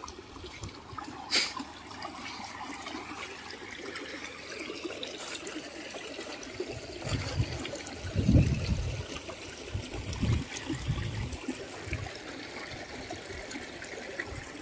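Shallow stream trickling over stones and gravel. A few low rumbling thumps come through about halfway, the loudest a little past the middle.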